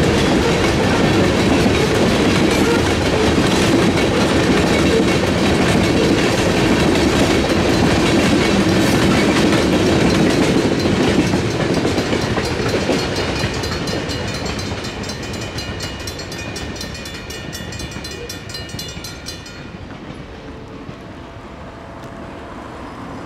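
Freight cars rolling through a grade crossing with steady wheel clatter, fading after about eleven seconds as the end of the train clears. A Safetran mechanical crossing bell rings on with a rapid, even strike and stops about twenty seconds in as the gates start to rise.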